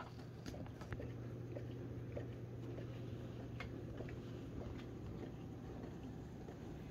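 Quiet room tone: a steady low hum with faint, scattered clicks and rubs of a handheld phone being moved about.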